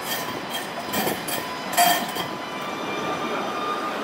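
Alstom Citadis 305 tram running past on its steel rails. A few short sharp clicks and squeaks come from the wheels in the first two seconds, the loudest a brief squeal just before the two-second mark. A whine rising slowly in pitch then runs through the second half as the tram picks up speed.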